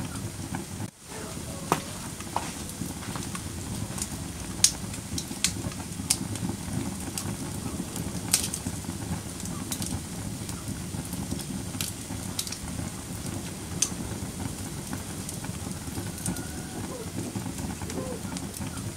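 Wood fire burning in a fireplace: a steady low crackle with scattered sharp pops, and a brief dropout about a second in.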